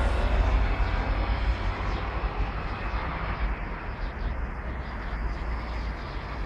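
Wind rumbling on the microphone over a steady distant engine drone, with a faint gliding pitch in the first second.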